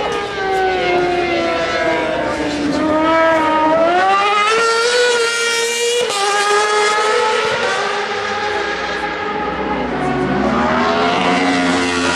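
Superbike racing motorcycle engines at high revs passing on the track. The pitch falls, then climbs in steps as a bike accelerates through the gears, changes sharply about halfway through, and a fresh rise starts near the end.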